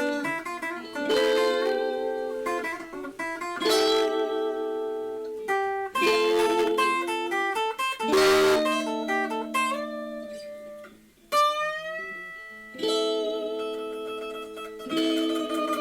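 Solo guitar playing a Spanish-style blues in A minor: strummed chords struck every two seconds or so, with picked single notes between them. A few sliding notes come about two-thirds of the way through.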